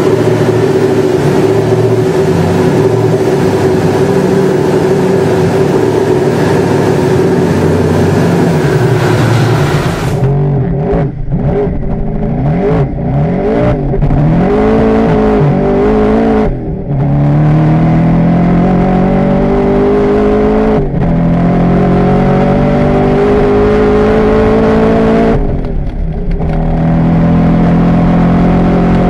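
Twin-turbo Corvette Z06 V8, built to over 1000 rear-wheel horsepower, first running at a steady high speed on a dyno. About ten seconds in it is heard from the cockpit, accelerating flat out through the gears: the pitch climbs in long pulls, each broken by a short dip at an upshift, several times.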